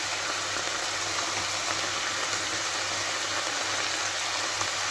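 Onion and grated carrot sizzling in oil and water in a frying pan: a steady crackling hiss, with a low steady hum underneath.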